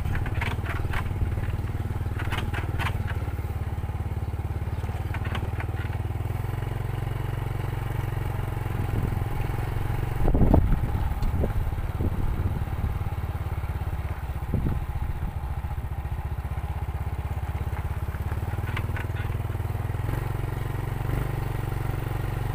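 Motorcycle engine running steadily as it rides over a rough, potholed road, with light rattling ticks and one louder thump about ten seconds in from a bump.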